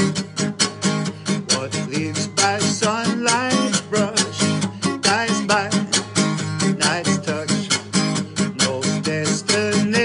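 Acoustic guitar strummed hard in a quick, steady rhythm, live, without words. Wavering melodic notes ride over the strumming around three and six seconds in.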